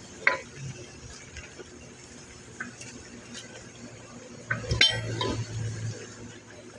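Steel parts being handled during metal fabrication, clinking and clanking: a sharp clank just after the start, scattered light ticks, and a louder ringing clank a little before 5 seconds in.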